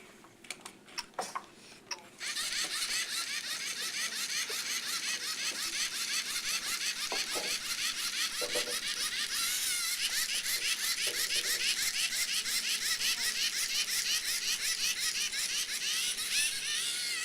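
Small robot's electric drive motors running with a fast pulsing whine that starts about two seconds in, after a few sharp clicks.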